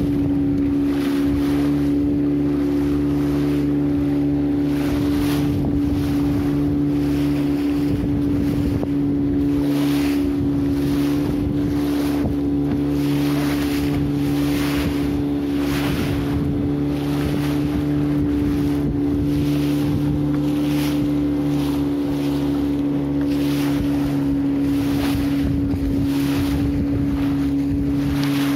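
An engine running steadily at a constant speed, with wind buffeting the microphone in irregular gusts.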